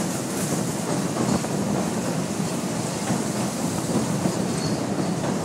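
Oigawa Railway Ikawa Line train running steadily across a bridge, heard from aboard a carriage: a continuous low noise from the wheels on the rails.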